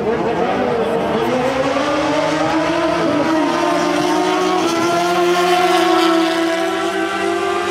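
Stunt motorcycle engine revving hard, its pitch climbing over the first few seconds and then held high and steady.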